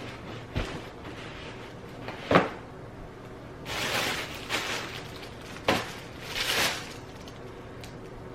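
Packages being handled and set down: sharp knocks, one about two seconds in and another near six seconds, mixed with a few rustling swishes of packaging.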